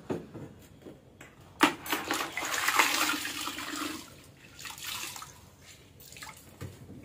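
Kitchen containers being handled on a hard floor. There is a sharp clack about one and a half seconds in, then about two seconds of rushing noise as contents are tipped out, then a few lighter clinks.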